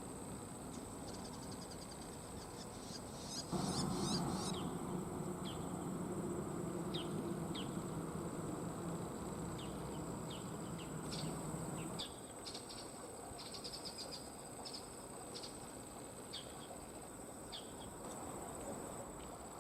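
Insects trilling in one steady high note, with short falling bird chirps scattered through. A low rumble rises about three and a half seconds in and cuts off suddenly about twelve seconds in.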